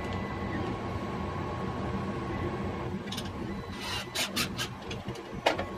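Cordless drill/driver running a bolt into a 3D-printed plastic part: a low steady whir with rasping, then several sharp clicks and scrapes from about three seconds in.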